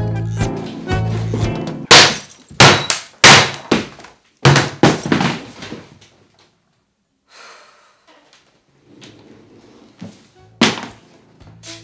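Jazz music with upright bass stops, and a laptop is smashed in a rapid run of about six heavy blows over some three seconds. After a quiet stretch comes one more heavy thud near the end, and the music starts again.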